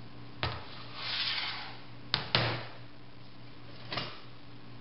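Heavy metal lathe taper-attachment parts being handled and set down on a workbench: a clunk, a brief scrape, then two sharp clanks in quick succession a little over two seconds in, and a lighter knock near the end.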